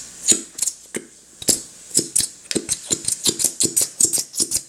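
Rapid sharp tapping and clicking from a glue bottle being knocked and worked to get thick glue out, the taps coming faster, about four a second, near the end.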